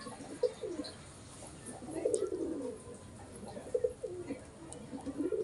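Domestic pigeons cooing: about four bouts of low coos, the fullest about two seconds in and again at the very end.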